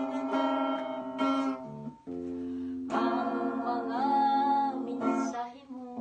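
Sunburst Stratocaster-style electric guitar strummed through an amplifier, with a woman singing over it. About three seconds in her voice comes in strongly and holds one long note until near the end.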